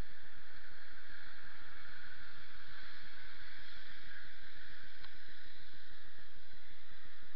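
Steady hiss of rain falling on wet pavement and road, with a faint click about five seconds in.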